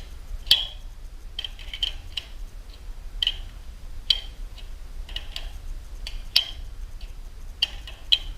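Metal hand tools clicking and clinking irregularly against the garage door opener's chain-tensioner nut and bolt as the nut is turned to take up slack in the chain, with a few louder clinks.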